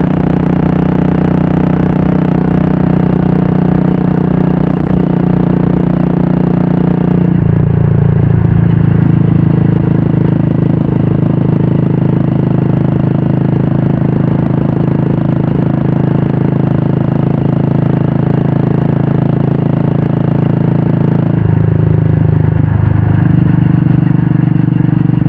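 Royal Enfield Classic 350 single-cylinder engine running through a Red Rooster aftermarket exhaust while the bike is ridden, a steady loud exhaust note. The engine note changes twice, about seven seconds in and again around twenty-two seconds in.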